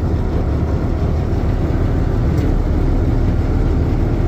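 Diesel engine running steadily just after a cold start at 30 degrees, with a deep, even rumble.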